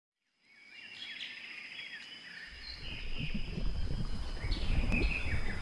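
Recorded nature ambience fading in: birds chirping in short gliding calls over a steady high tone, with a low rumble building up about halfway through.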